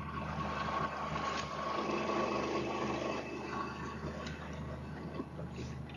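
Boat engine idling steadily, a constant low hum.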